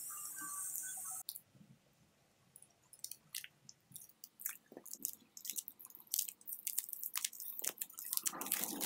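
Double-sided hair-system tape being peeled slowly off a hair patch's base: a string of faint sticky crackles and ticks that come thicker toward the end. A steady faint background hum cuts off suddenly about a second in.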